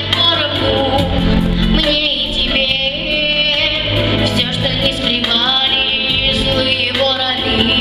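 A young girl singing a pop song in a high voice over an instrumental backing track.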